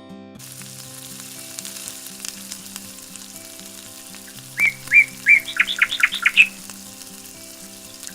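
Food sizzling as it fries in a small clay pot, a steady hiss, over plucked guitar background music. About halfway in, a quick run of loud, bird-like whistled chirps.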